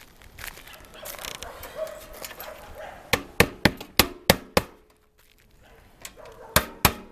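Hammer driving roofing nails into shingles: a quick run of about six strikes in the middle, then two more near the end, with softer scraping before them.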